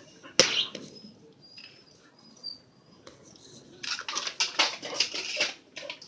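A sharp knock about half a second in, then a flurry of quick scratchy taps for about a second and a half near the end: a pit bull's claws scrabbling on the floor as it plays with its toy.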